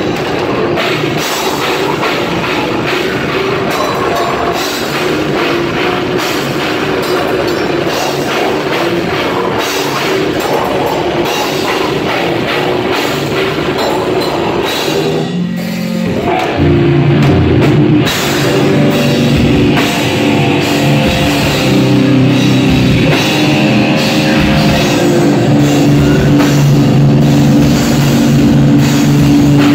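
Heavy metal band playing live: drum kit with cymbals, distorted guitar and bass. About halfway through the music breaks off for a moment, then comes back louder with heavy held chords.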